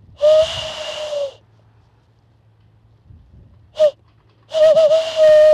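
Imitation of a male tawny owl's song, made by blowing through the slot between cupped hands and thumbs. It starts with one long, breathy hoot. After a pause come a very short hoot and then a longer wavering hoot near the end.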